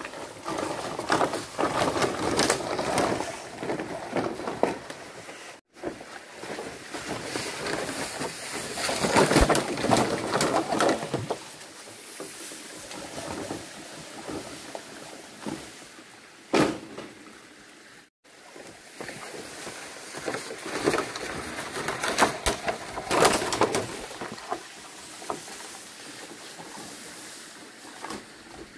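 Long green bamboo poles scraping and rustling as their ends are dragged through leaf litter and undergrowth, in irregular swells with many small knocks and crackles, broken twice by sudden brief dropouts.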